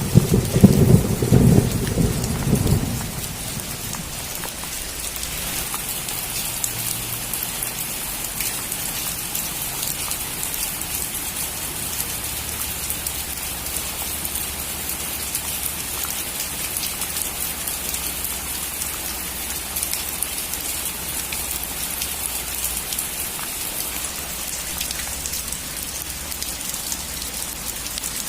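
A loud, low roll of thunder in the first three seconds, then steady heavy rain on a roof.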